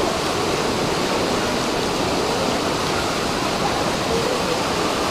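Fountain waterfall: water pouring and splashing steadily into the basin.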